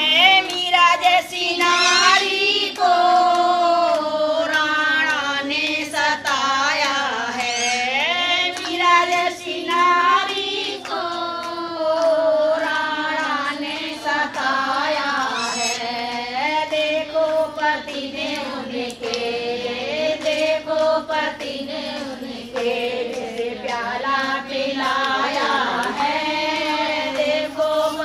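Women singing a Hindi song in a slow melody with long drawn-out notes, without a break.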